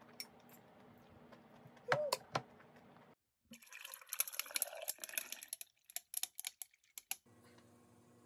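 Iced Americano poured from a bottle into a tumbler over ice cubes for about two seconds, followed by a run of sharp clicks. Earlier, a couple of clinks of metal chopsticks against a bowl.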